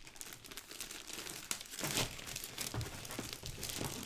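Packaging crinkling and rustling by hand as a small case holding a fabric mouse pad is opened, with slightly louder rustles about two seconds in and near the end.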